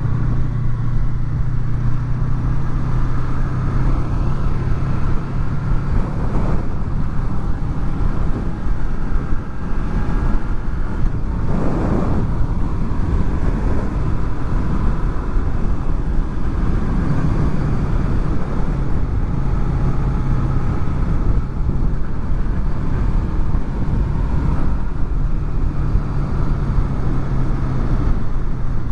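Honda VFR800's V4 engine running steadily at road speed, with wind rush over the rider's fur-covered microphones. About twelve seconds in there is a brief louder rush, and around seventeen seconds the engine note dips and shifts briefly.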